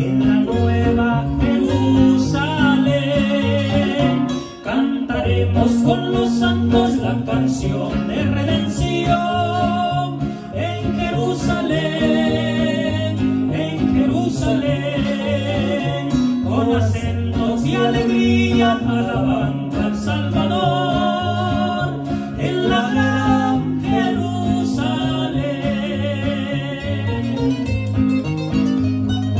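Two acoustic guitars, a full-size nylon-string guitar and a smaller requinto, playing a Latin-style hymn accompaniment, with male voices singing over them.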